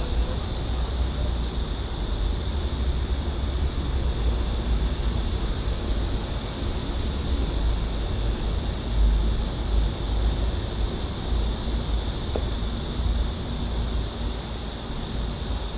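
Insects chirping in a steady, repeating high-pitched pulse, over a continuous low rumble.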